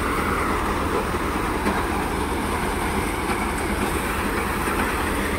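Tractor-driven Gill paddy thresher running steadily under load as bundles of rice straw are fed into it, with the Massey Ferguson 241 DI tractor's diesel engine under it: a continuous, even mechanical noise.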